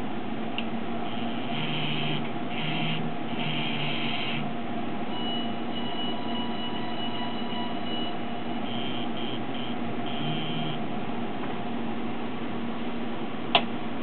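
DC servo motor driven by a MakerBot DC servo controller, whining in short bursts while its shaft is turned by hand, with a fainter steady whine between the bursts. A steady low hum runs underneath, and there is a single sharp click near the end.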